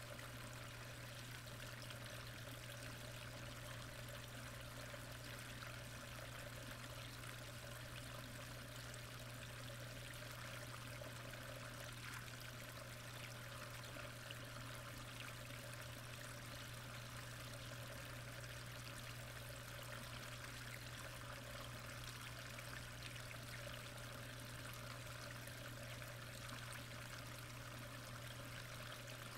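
Steady rushing water noise heard under the surface of a koi pond, with a low steady hum beneath it.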